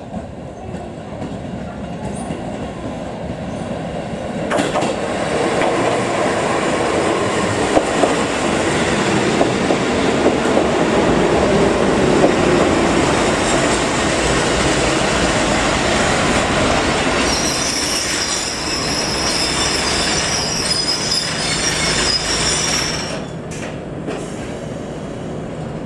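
Kotoden 1200 series electric train pulling into a station, its running noise building as it comes alongside. From about 17 s a high squeal sounds as it slows, cutting off as the train stops about 23 s in.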